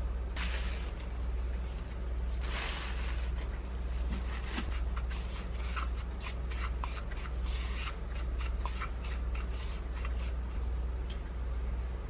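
A wooden spoon scrapes and stirs dry powder in a plastic bowl. Then gloved fingers rub and roll pieces of chicken through the coating powder, making a run of short scratchy rubs and taps. A steady low hum runs underneath.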